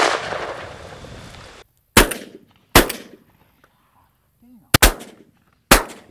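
Shotgun shots, about six in quick succession: the first with a long rolling echo that lasts over a second, the rest short sharp reports cut off abruptly, two of them fired almost together about three-quarters of the way through.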